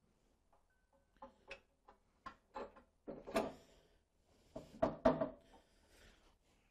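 A bandsaw table being worked into place on the saw: a run of clunks and scrapes, with two louder clusters of knocks about three and five seconds in.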